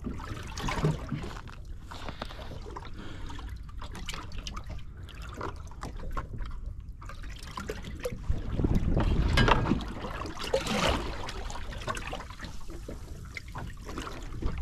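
Small waves lapping and slapping against the hull of a drifting fishing boat, in irregular splashes, with a louder stretch of slapping a little past the middle.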